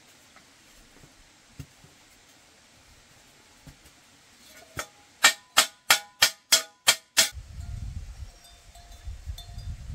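A quick run of about seven sharp, ringing knocks, roughly three a second, as of a tool striking something hollow; a low rumble follows.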